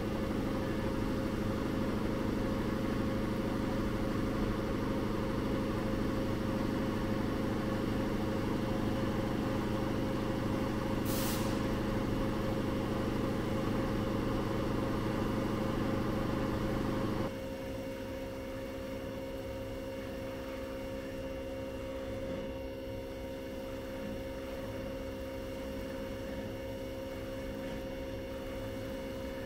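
Steady hum of shop machinery that drops abruptly to a quieter hum about 17 seconds in, with one brief high hiss around 11 seconds.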